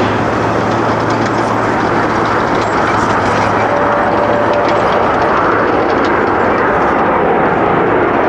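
Jet aircraft engines running loud and steady as an airliner passes close by.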